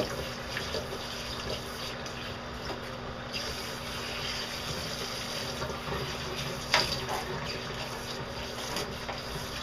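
Handheld shower sprayer running steadily, water spraying onto an Old English Sheepdog's long coat and draining into the bathtub as the conditioner is rinsed out. A brief sharp knock or splash is heard about two-thirds of the way through.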